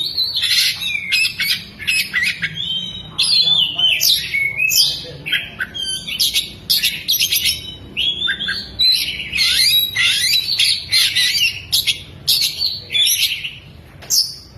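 Oriental magpie-robin (kacer) singing a fast, varied song of whistled glides, chirps and harsh rapid notes, with lovebird calls mixed in as mimicry. It pauses briefly near the end.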